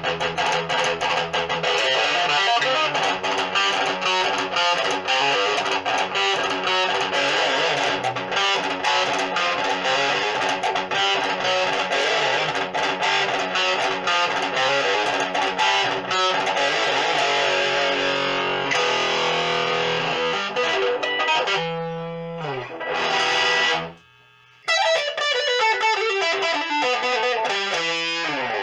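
Electric guitar played through a Meteoro Atomic Drive ADR-20 combo amplifier with a distorted tone: a busy riff that thins out later, a short stop about 24 seconds in, then a long descending run near the end. The amp has just been repaired, its potentiometers cleaned of the dirt that had caused crackling noise.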